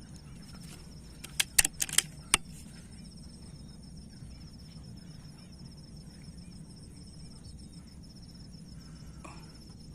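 A quick run of five sharp clicks or knocks, packed into about a second, over a steady low rumble and a steady high insect drone.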